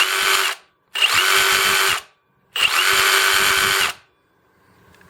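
Kobalt 24-Volt Max brushless variable-speed jigsaw (model KJS 324B-03) triggered three times, running on its ultimate output 4 amp-hour battery. Each run lasts about a second: the motor spins up quickly, holds a steady whine and stops.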